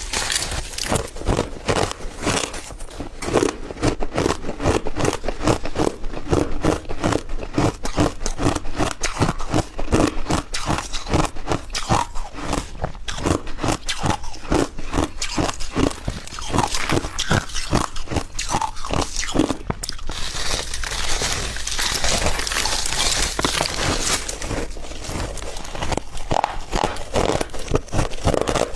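Crumbled ice being chewed close to the microphone: dense, rapid crunching that keeps going.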